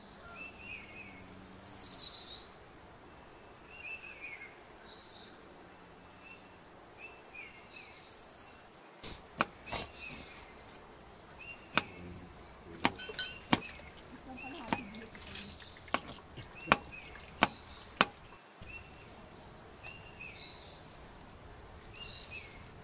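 Small birds chirping repeatedly in the background. From about nine seconds in, a knife chops garlic on a plastic cutting board in a string of sharp, irregular taps, about a dozen in all, which stop near the three-quarter mark.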